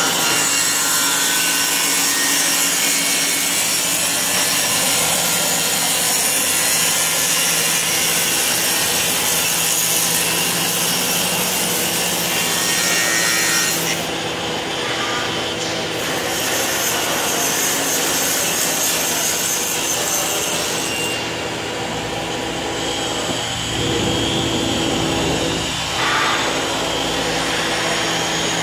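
Vertical panel saw's circular blade cutting a 3 mm solid aluminium sheet: a steady, loud, hissing sawing noise. The highest part of the hiss drops away for a couple of seconds about halfway through, and again near the end.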